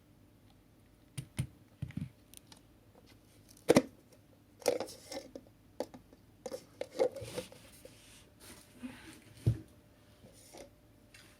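Scattered clicks, taps and scraping of things being handled by hand, with a sharp knock about four seconds in and a dull thump near the end. No motor is running.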